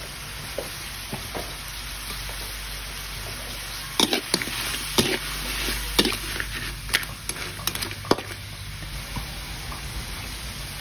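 Crab pieces sizzling steadily in a metal wok, stirred with a run of sharp clacks and scrapes of shells and utensil against the pan between about four and eight seconds in.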